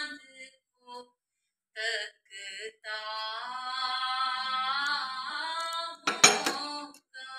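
Background song with a woman singing a melody. About six seconds in, a loud sharp clatter of plastic toy blocks dropped into a glass bowl.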